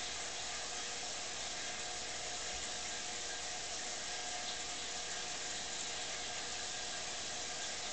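Steady, even hiss with a faint steady hum underneath: the background noise of running aquarium equipment and water.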